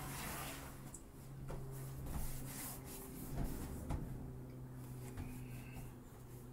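Soft rubbing, shuffling and a few light knocks of a person shifting position on foam gym mats, over a steady low hum.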